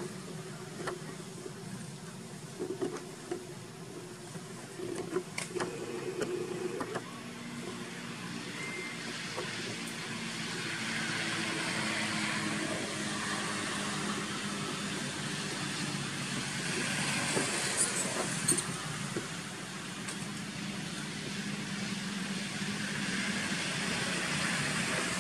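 Motorbike traffic passing on a road, swelling to a peak and fading, with another pass building near the end, over a steady low hum. There are a few sharp clicks and knocks in the first few seconds and again about two thirds of the way through.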